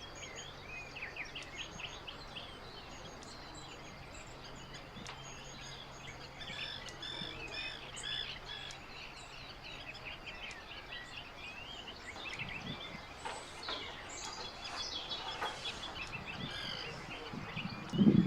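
Several wild birds singing and calling, with overlapping chirps and short runs of repeated notes. A faint steady hum runs underneath for the first half, and a sudden loud low thump comes near the end.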